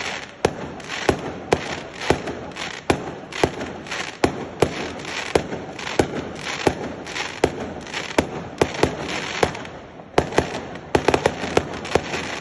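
Firecrackers going off in a rapid, irregular string of sharp bangs, several a second, with crackling between them. There is a brief lull about ten seconds in, then a quick cluster of bangs.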